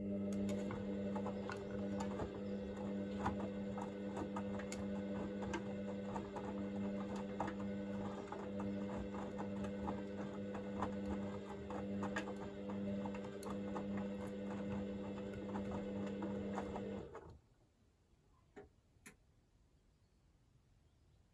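Hoover VisionDynamic front-loading washing machine tumbling its drum in the 40°C wash: a steady motor hum with a patter of clicks from the laundry and drum, which stops abruptly about seventeen seconds in as the drum pauses, followed by a couple of faint clicks.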